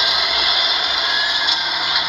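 Heavy diesel earthmoving machinery running, a steady mechanical din with a hiss over it. The deep engine rumble drops away at the start, and a few short clatters come near the end.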